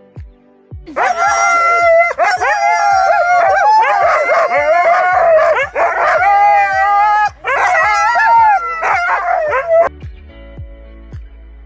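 A pack of harnessed sled huskies howling and yelping together, many voices gliding up and down and overlapping, starting about a second in and stopping abruptly near the end. Background music with a steady beat runs underneath.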